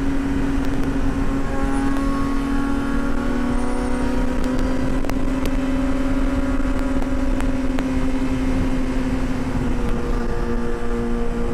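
Yamaha YZF-R6S inline-four sport bike engine with a Two Brothers full exhaust, cruising at steady revs and easing a little lower in pitch near the end, with wind rumble on the helmet microphone.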